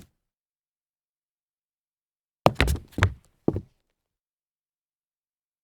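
Dress shoes stumbling on concrete: a quick, uneven cluster of about four hard heel-and-sole hits and scuffs, about two and a half seconds in, after silence.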